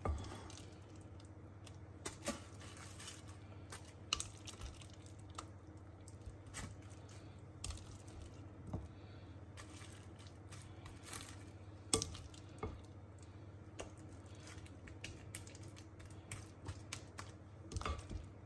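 Silicone spatula scooping and scraping thick chocolate biscuit mixture out of a glass bowl into a plastic-wrap-lined loaf tin: scattered soft clicks, taps and squelches over a low steady hum.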